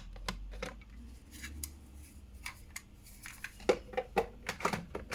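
A run of sharp clicks and taps of hard objects being handled, sparse at first and coming quicker and louder in the last couple of seconds.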